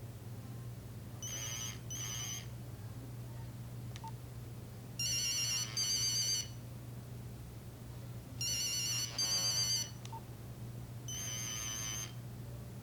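Nokia 3395 mobile phone playing a monophonic beep ringtone: three pairs of short, buzzy electronic tones, then one longer tone, repeating as a ring pattern. A steady low hum runs underneath.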